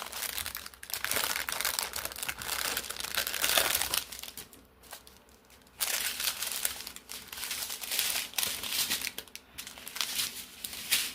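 Plastic packaging crinkling and rustling in irregular bursts as it is handled and opened, with a short lull about halfway through.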